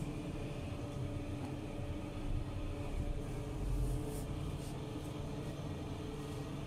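Steady low machine hum with a few steady tones in it. Brief rustles of a woven flour sack and a scoop in flour come through around the middle.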